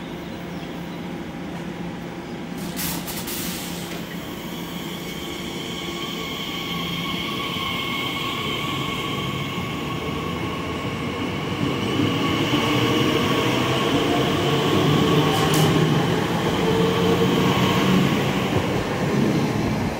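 TfL Rail Class 345 electric train moving out along the platform, a steady high whine over the rumble of its wheels, growing louder in the second half as the rear carriages pass.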